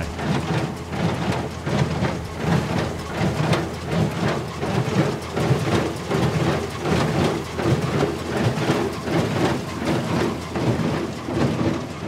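John Deere 1025R subcompact tractor running with a John Deere 327 small square baler working behind it: a dense mechanical clatter with a steady run of knocks over the engine noise.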